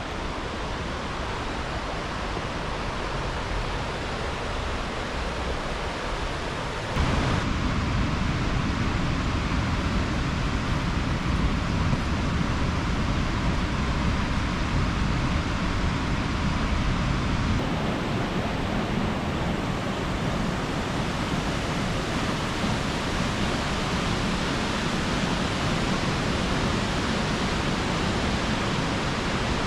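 Steady rushing roar of Cedar Falls, a waterfall on Cedar Creek, plunging onto rocks. It gets louder and deeper about seven seconds in.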